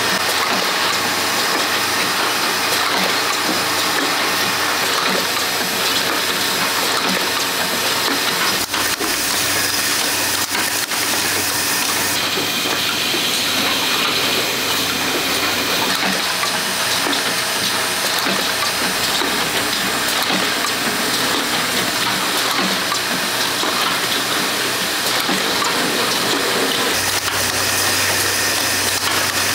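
Steady noise of oil filter production machinery, a continuous hissing, rushing sound that changes character abruptly about 9 and 12 seconds in and again near the end.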